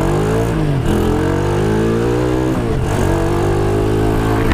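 Motorcycle engine running steadily, with its pitch shifting briefly twice: about half a second in and again just before three seconds.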